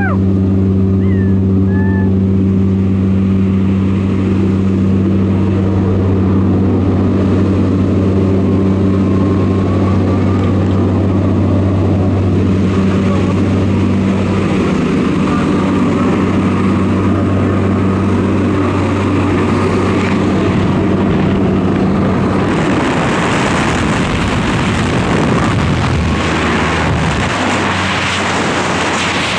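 Steady drone of the jump plane's propeller engines heard inside the cabin. About three quarters of the way through, a loud rush of wind takes over as the tandem skydivers leave the aircraft into freefall.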